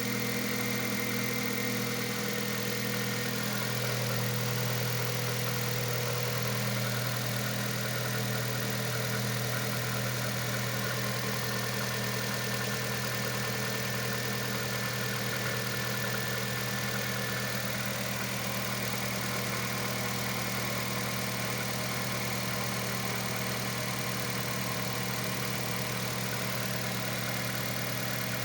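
Car engine idling on a cold start with a slight knock, which the owner says fades away as the engine warms up. The idle settles a little lower about two seconds in and then runs steadily.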